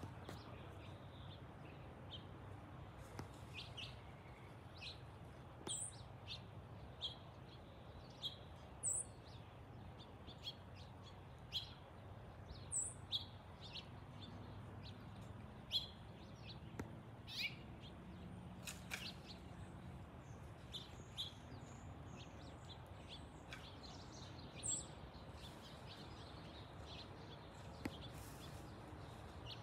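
Small birds chirping, short separate calls every second or so, over a faint steady low rumble.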